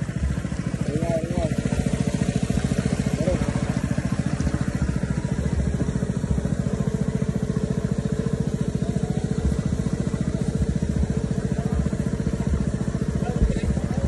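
A small engine running steadily at an even speed, with a fast, unchanging beat.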